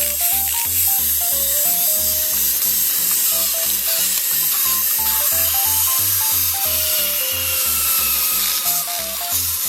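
Background music: a simple stepped melody over a steady, regular bass beat, with a faint high hiss underneath.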